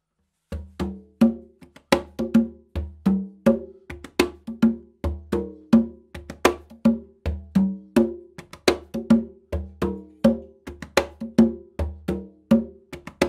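A pair of congas played with bare hands in a steady rhythmic groove. The two drums sound at two different pitches, and some strokes are sharp and bright. The playing starts about half a second in.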